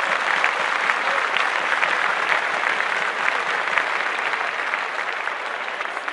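Audience applauding: dense clapping that starts abruptly and slowly dies down near the end.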